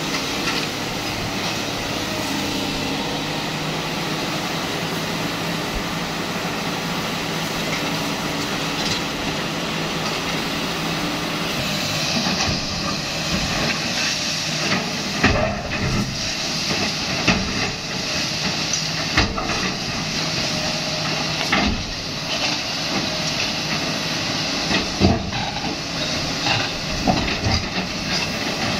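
Sany SY215C excavator's diesel engine running steadily under load. From about halfway through, irregular knocks and crashes as the bucket breaks up and drops concrete rubble.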